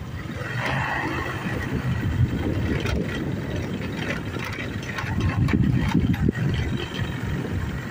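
Engine of a small open sightseeing train running steadily as it rides along, with irregular knocks and rattles from the moving carriage.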